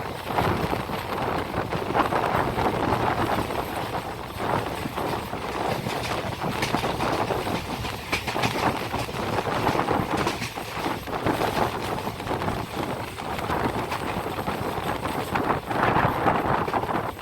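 Passenger express train running along the track, a steady rushing noise with irregular clacks from the wheels over the rails.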